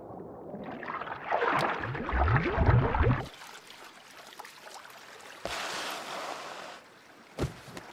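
Cartoon sound effects: a loud rushing, gurgling whoosh with low tones rising for about three seconds, then a softer hiss. A second shorter rush follows, and a brief knock comes near the end.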